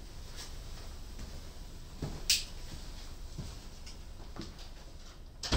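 Quiet small-room tone with a low steady hum, broken by a few light knocks and clicks from people moving about and leaving the table, a sharp click about two seconds in and a louder thump at the very end.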